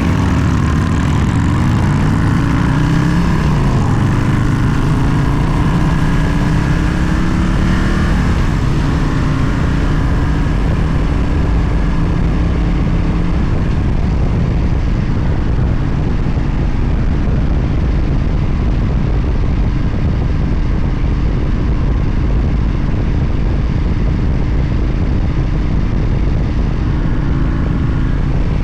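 Motorcycle engine running under way, with heavy wind and road noise. The engine pitch rises and falls over the first several seconds, then holds steady at cruising speed.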